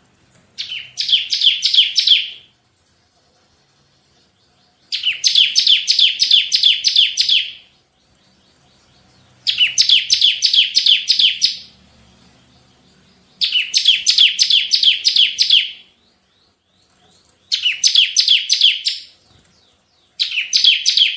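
Bar-winged prinia (ciblek) singing its rapid 'tembakan' song: six bursts of quick, sharp repeated high notes, about four a second, each burst one to three seconds long with short pauses between.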